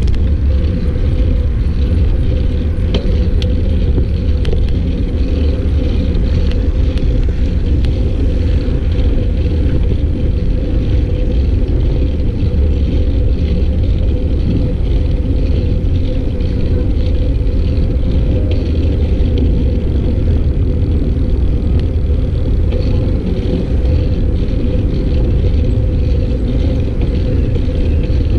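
Steady low rumble of wind buffeting the microphone of a camera riding on a moving bicycle, mixed with road noise and a steady faint hum.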